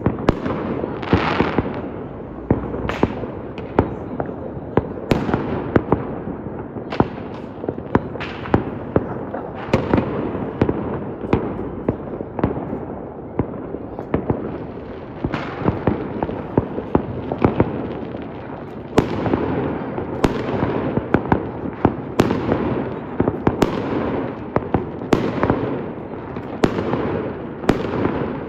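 Fireworks display: a rapid, irregular string of sharp bangs from bursting shells, one every second or less, over a continuous crackle and rumble.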